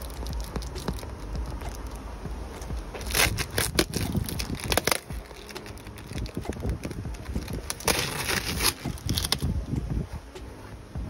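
Hands pressing and rubbing a glued vinyl patch onto an inflatable hot tub's PVC wall, the vinyl crinkling and scraping in two bursts a few seconds apart, over low handling rumble.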